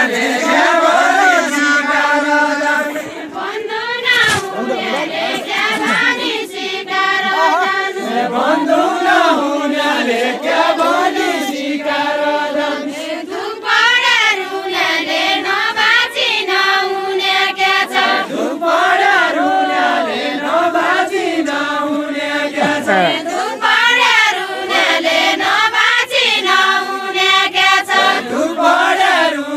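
Villagers singing a deuda folk song as an unaccompanied chorus, repeating short rising-and-falling phrases with long held notes.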